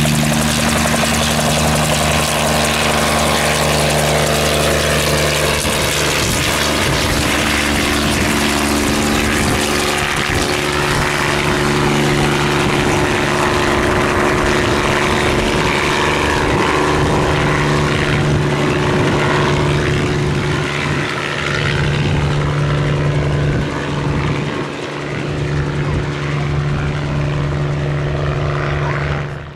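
Bell 47 helicopter lifting off and flying away: its piston engine and two-blade main rotor run steadily, the sound easing off a little in the last few seconds as it climbs into the distance.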